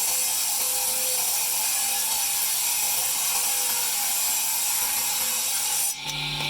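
Power tool grinding marble, a steady high-pitched rasping whine. Near the end it gives way abruptly to a lower, even motor hum.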